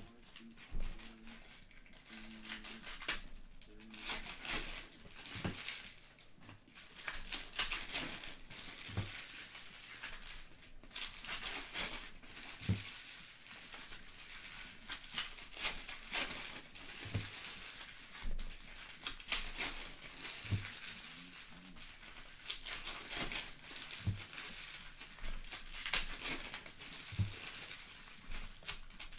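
Trading-card pack wrappers crinkling and tearing as packs are ripped open and handled, with cards and packs knocking dully on the table every couple of seconds.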